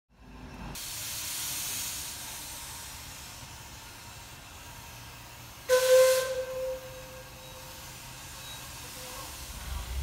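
Steady hiss of steam venting from a Shay geared steam locomotive. About six seconds in, a sudden louder burst brings in a ringing tone that fades away over about three seconds.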